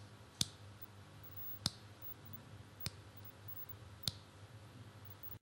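Four sharp clicks, evenly spaced about 1.2 seconds apart, over a faint low hum. The sound cuts off abruptly near the end.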